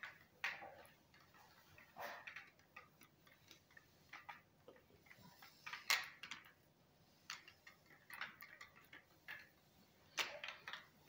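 Marbles rolling down a clear plastic marble run, clicking and rattling against the track pieces in irregular runs of clicks, with louder clusters every few seconds, the loudest about six seconds in.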